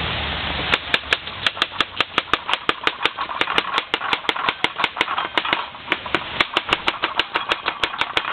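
Kitchen knife chopping cabbage on a cutting board. A rapid, even run of sharp chops, about four or five a second, begins about a second in.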